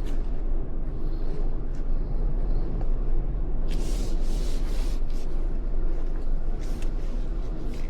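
Car driving along: steady low road and engine rumble, with a brief hiss about four seconds in and another shortly before the end.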